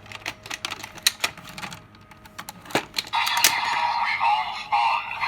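Hard plastic clicks and snaps as deluxe Kamen Rider toy buckles are handled and set into the toy belt. About three seconds in, the belt's electronic sound effect starts playing loudly.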